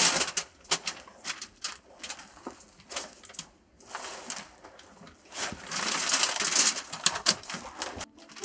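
Foil-faced insulation sheet rustling and crinkling as it is handled and pressed against a log wall, with scattered sharp clicks. It is loudest at the very start and again from about halfway through.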